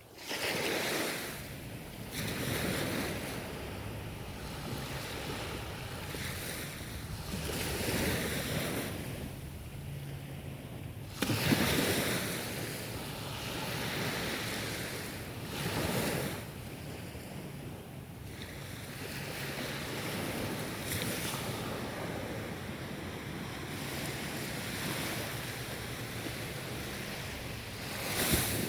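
Ocean waves breaking and washing up on a shore, the surf swelling and falling every few seconds, with the loudest surge coming in suddenly about eleven seconds in.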